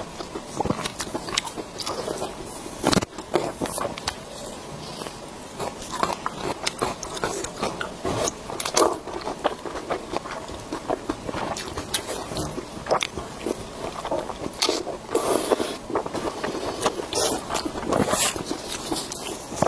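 Close-miked biting and chewing of pork intestine bundles: many irregular clicks and crackles from the mouth as the food is bitten and chewed.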